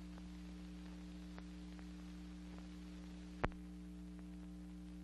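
Noise from a worn film soundtrack: a steady low hum with hiss and scattered faint ticks, and one sharp pop about three and a half seconds in.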